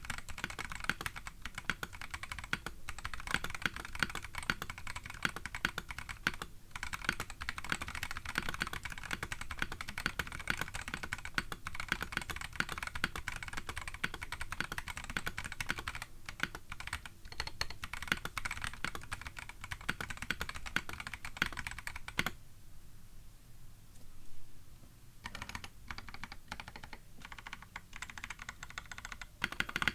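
Fast, continuous typing on a KBD8X MKII mechanical keyboard: polycarbonate case with case foam, brass plate, lubed Gazzew Boba U4T tactile switches and MDA plastic keycaps. About three-quarters of the way through, the keystrokes stop for a couple of seconds, then the typing resumes.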